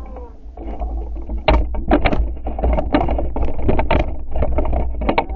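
A steady low rumble with a string of irregular knocks and slaps starting about a second and a half in, as a boat's hull pounds over choppy water or wake.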